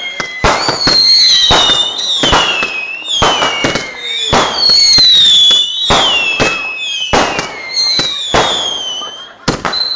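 Firework cake firing a rapid volley of whistling shots, each a sharp bang followed by a high whistle that falls in pitch, about two a second.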